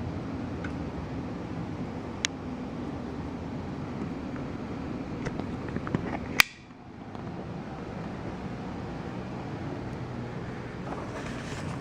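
Steady fan-like room hum with a few sharp clicks and taps from handling the vacuum's cardboard packaging, one loud click about halfway through, and a rustle of cardboard and paper near the end.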